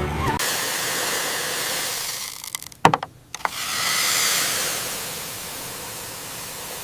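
A steady rushing hiss with no pitch. It drops away briefly a little before halfway, where a few sharp clicks or knocks sound, then swells back and slowly fades.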